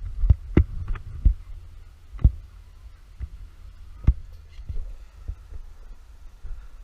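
Uneven low thumps over a low rumble, with a handful of sharp knocks in the first four seconds.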